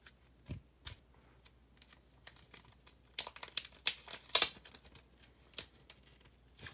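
Plastic comic-book bag crinkling and clicking as a bagged and boarded comic is handled and turned over, in scattered short bursts, busiest around three to four and a half seconds in.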